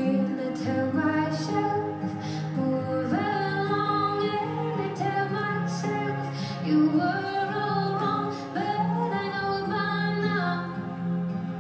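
A recorded song: a woman singing long held notes over a steady instrumental backing.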